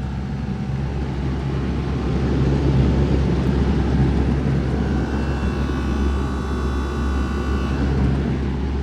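Wall-mounted air-conditioning unit running, a steady hum and fan rush of its condenser fan and compressor. A higher whine joins in for a few seconds in the middle.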